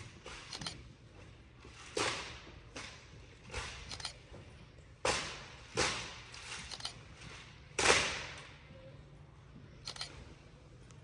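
Drill team's rifle manual: about a dozen sharp slaps and cracks of hands and rifles striking in unison, irregularly spaced, the loudest about eight seconds in, each dying away briefly.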